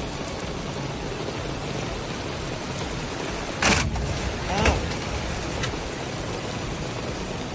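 Steady rushing of floodwater through a street, with a short loud burst of noise about three and a half seconds in and a smaller one about a second later.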